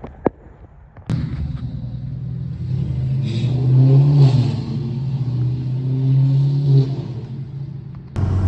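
Two short sharp clicks, then about a second in a Lexus GS300's straight-six engine comes in abruptly under acceleration. It swells louder through the middle and then eases off.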